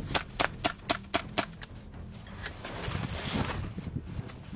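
Airsoft guns firing a quick string of about seven sharp shots, roughly four a second, in the first second and a half.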